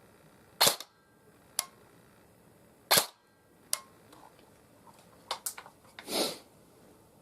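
S&T HK416 electric airsoft gun test-firing single shots: two sharp cracks, each followed by a lighter click. Near the end come a quick cluster of shots and a short burst.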